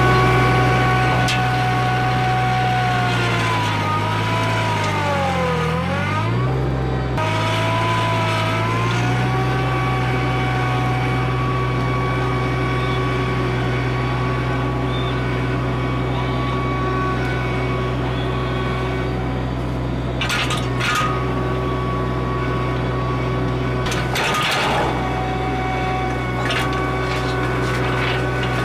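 Summit TX25 compact tractor engine running steadily under load while pulling a ditching box through turf. Its pitch sags about four to six seconds in as the engine strains, then comes back up. A few brief knocks come in the last third.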